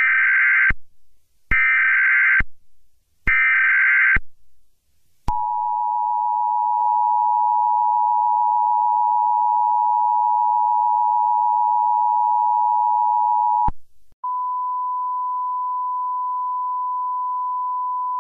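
Emergency Alert System tones announcing a severe thunderstorm warning: three short bursts of screechy SAME header data, then the two-tone attention signal held for about eight seconds, then after a brief pause a single steady tone.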